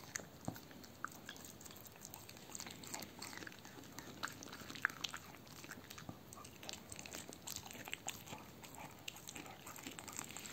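Dog licking and chewing a raw veal heart: many short, irregular mouth clicks and smacks.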